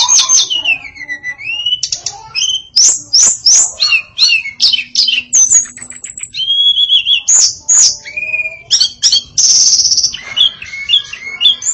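Female tledekan songbird singing a fast, varied song of sharp chirps and swooping whistles, with a harsh buzzy note lasting about a second near the end.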